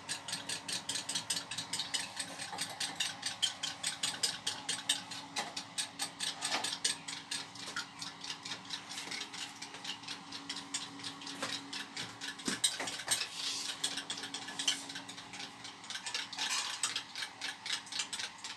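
Utensil beating raw egg in a small bowl: a fast, even clicking against the bowl, about five or six strokes a second.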